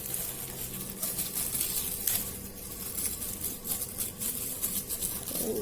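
Crackling and rustling of packaging being handled to get at the microphone's small LR44 button battery: a run of irregular small clicks and crinkles.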